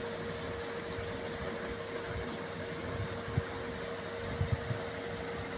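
A steady mechanical hum with one held tone over a constant hiss, with a few soft knocks about three and a half and four and a half seconds in.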